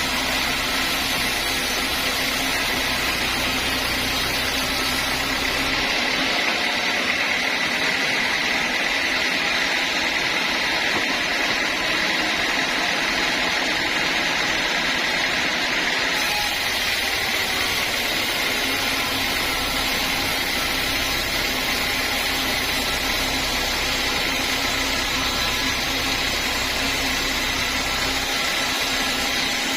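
Sawmill saw machinery running steadily, a constant mechanical noise with a steady high whine. The low rumble drops away for about ten seconds partway through, then returns.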